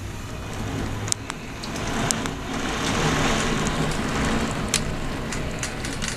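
Heavy rainstorm: a steady rush of downpour and wind that swells about two seconds in and eases near the end, with scattered sharp ticks of drops striking close by.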